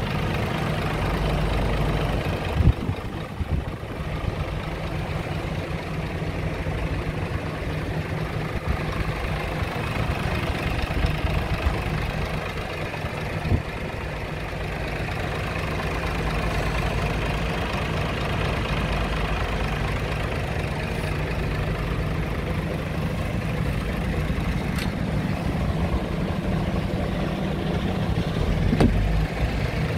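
Scania R tractor unit's diesel engine idling steadily, with a few brief knocks.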